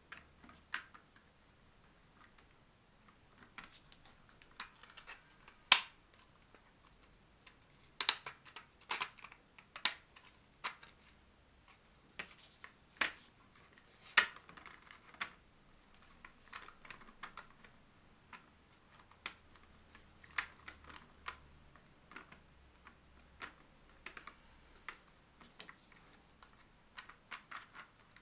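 Hard 3D-printed plastic clock parts being handled and fitted together: irregular light clicks and taps, with a few sharper clacks.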